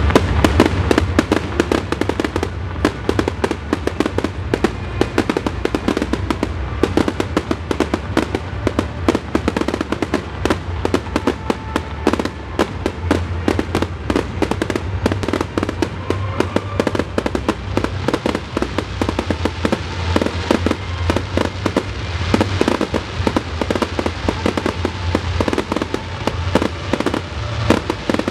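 Fireworks barrage: many small aerial shells firing and bursting in rapid succession, a dense, continuous run of bangs and crackles.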